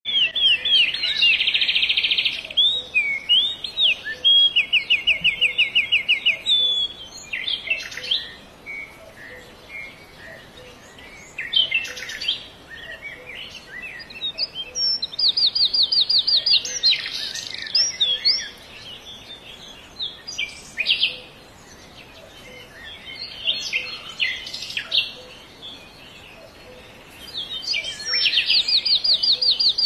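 Songbirds chirping and singing, with loud, rapid trills of repeated high notes coming back several times, between quieter scattered chirps.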